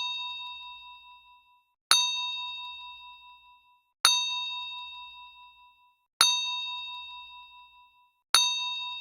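A metallic bell-like ding sound effect repeated at even intervals of about two seconds, four strikes in all. Each strike rings with one steady tone and several higher overtones, then fades away over about a second and a half.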